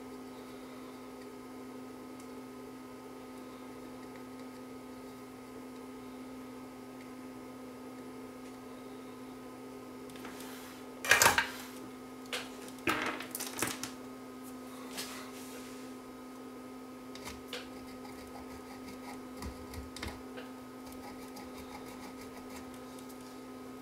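Hand tools being handled at an electronics workbench: one loud clatter about eleven seconds in, then a quick run of sharp clicks and a few faint ticks later, over a steady electrical hum.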